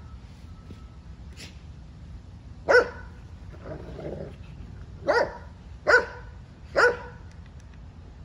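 A dog barking in play: four loud, sharp barks, the last three close together, with a low growl between the first and second.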